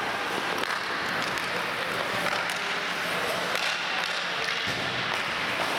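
Ice hockey rink ambience during play: a steady hiss of skates on the ice, with occasional sharp clicks of sticks and puck and faint distant voices.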